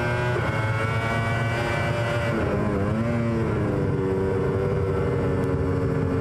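Onboard sound of a 2004 Yamaha YZR-M1 MotoGP bike's 990 cc inline-four engine running at high revs. A little over two seconds in the revs dip and recover through a downshift from fourth to third gear, then hold steady, climbing slowly.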